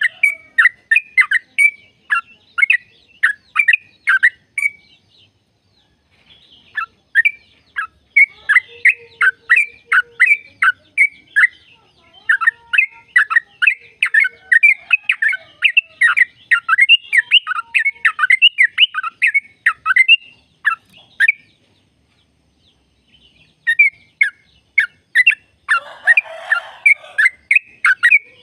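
Yellow-vented bulbul (trucukan) singing a long 'ropel': fast runs of short, downward-sweeping notes, about four a second. The song breaks off twice for a second or two, and a short harsh rasp sounds near the end.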